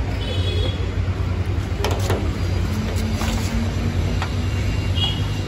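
Outdoor street ambience: a steady low rumble, with a few faint clicks around the middle.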